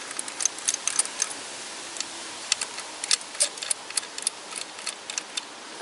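Irregular light clicks and ticks from undoing the long retaining screws of a Delphi ignition coil pack on an engine, bursts of them in the first second and again from about two and a half seconds in.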